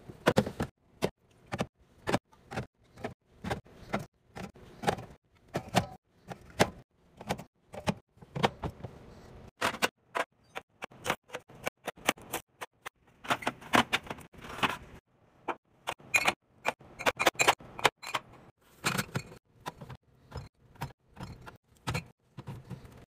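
Irregular knocks, taps and clinks of containers, jars and food packages being handled and set down on fridge shelves, several a second, with no speech.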